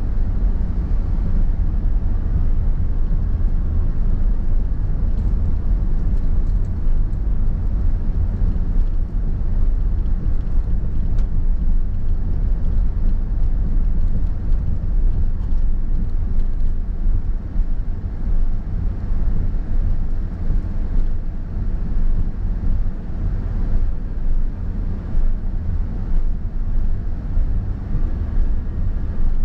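Steady low rumble of a car driving, with engine and road noise heard from inside the vehicle.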